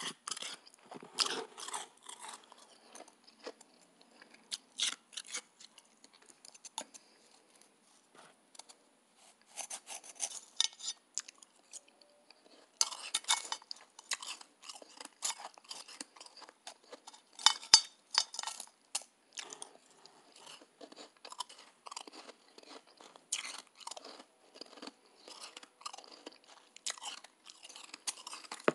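Close-up chewing and crunching of soft, fluffy shaved ice: irregular runs of crisp crunches with a few short pauses.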